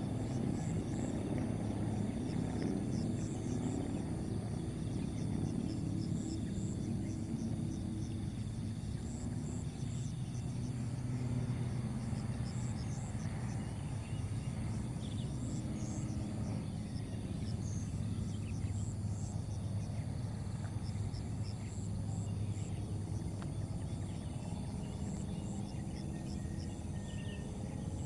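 Outdoor field ambience: a steady low rumble with faint, rhythmic insect chirping high above it.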